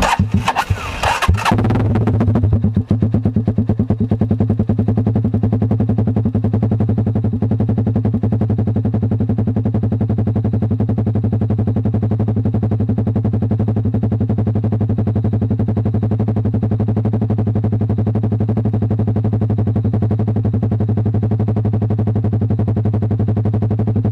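Single-cylinder motorcycle engine idling through an Akrapovic Evo GP open pipe with the silencer removed, loud and evenly pulsing. After a few uneven bursts in the first couple of seconds it settles into a steady idle.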